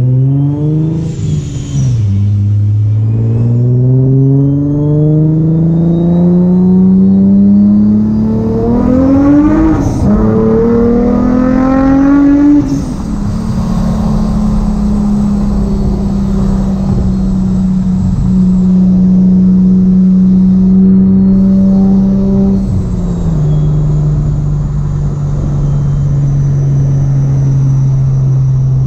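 Supercharged Infiniti G35's V6 pulling up through the gears of its 6-speed manual. The engine note climbs and drops at each shift, about two, ten and twelve seconds in, with a high supercharger whine rising alongside it and a blow-off valve hissing as it vents on the later shifts. It then settles to a steady cruising note, which steps lower near the end.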